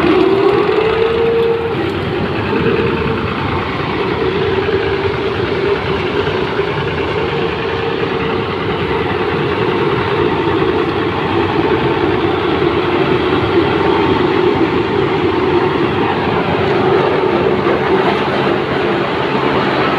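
A sugarcane harvester and the tractor running alongside it, working together: steady, loud diesel engine and machinery noise. A whine rises in pitch over the first second or so, then holds steady.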